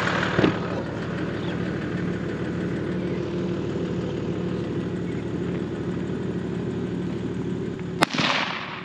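A single rifle shot at a feral pig about eight seconds in, sharp with a short echo after it, over a steady low drone.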